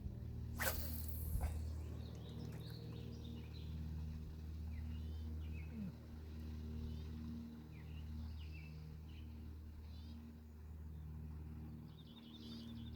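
Scattered short bird chirps over a steady low hum, with one brief sharp noise just under a second in.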